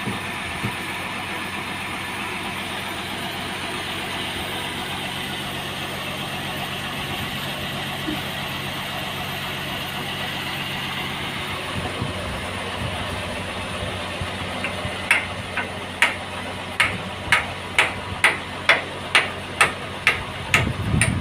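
A sawmill's engine runs steadily without load. About two-thirds in, a series of sharp knocks with a metallic ring begins, about two a second, louder than the engine.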